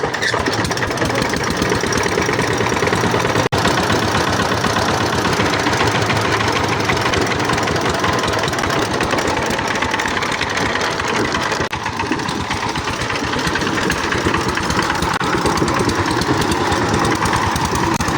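Power tiller engine running steadily after a hard start, with a brief dropout about three and a half seconds in.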